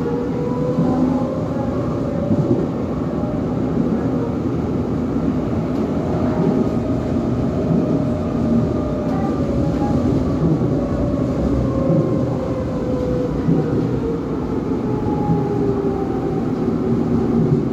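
Medellín Metro train running on an elevated track, heard from inside the passenger car: a steady rumble of wheels on rail with an electric motor whine. The whine rises slowly in pitch over the first several seconds, then falls over the later part as the train slows for the next station.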